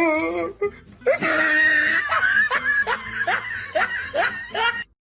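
A person laughing hard, starting about a second in as a quick run of repeated bursts that cuts off just before the end.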